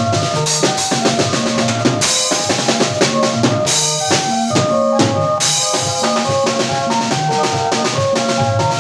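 Live band playing at a sound check: a drum kit beating out a busy rhythm of kick, snare and rimshots, with melodic instrument notes held over it.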